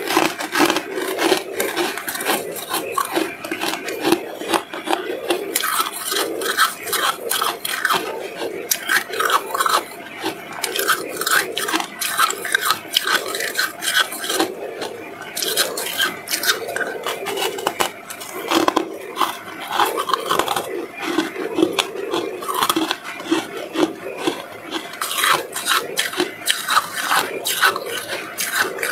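Freezer frost crunching: a dense run of crackles and crunches coming in uneven pulses.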